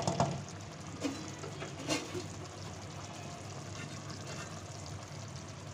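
Chicken pieces frying in a tomato-and-yogurt masala in an aluminium pot, a steady sizzle as the masala is fried down. There are a few light knocks against the pot in the first two seconds.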